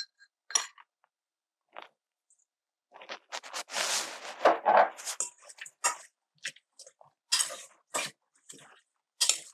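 A utensil scraping and clicking against a stainless steel colander as raw shrimp are tossed with dry jerk seasoning, in irregular strokes that are busiest from about three to six seconds in.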